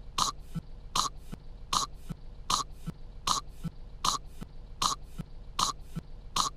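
A cartoon girl coughing on kettle corn, in short, sharp coughs over and over. A cough comes about every three-quarters of a second in an even, looping rhythm.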